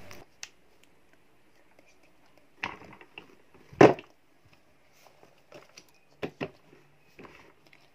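Scattered plastic knocks and clicks of a spin mop's head and handle being handled and set down into its plastic bucket, the loudest knock a little under four seconds in.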